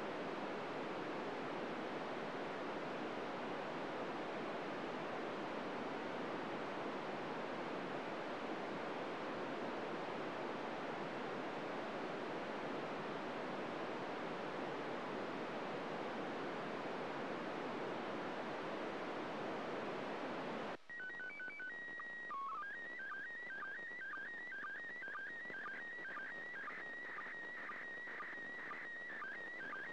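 FM radio receiver on 145.800 MHz hissing with static. About 21 seconds in, the hiss cuts off and the International Space Station's slow-scan television signal comes through: a held tone, then a warbling pattern of tones repeating about twice a second as the PD120 picture lines are sent.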